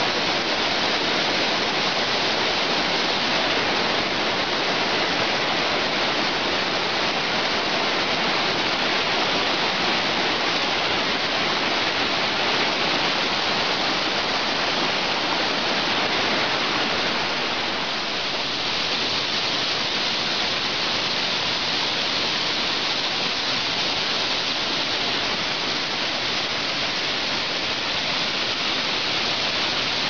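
Waterfall: a steady, loud rush of falling water that eases slightly about two-thirds of the way through.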